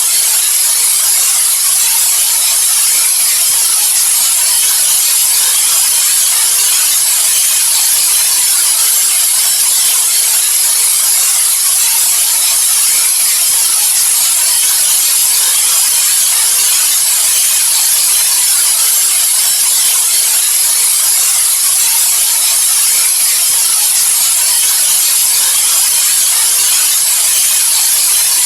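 Steady, loud white noise for sleep: an even, unchanging hiss weighted toward the high end.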